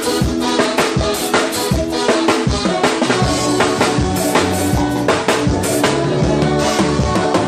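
Live band playing amplified music at a sound check: a drum kit keeps a steady beat of snare and bass drum hits under a bass line and sustained instrument chords.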